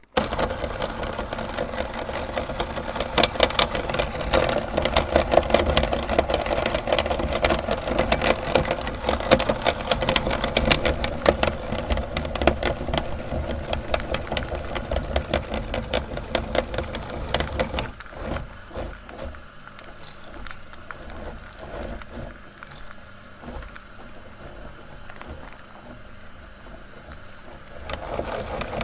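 Electric meat grinder running under load, its motor humming under dense crackling as material is forced through. About two-thirds of the way in it becomes quieter, then is briefly louder again near the end.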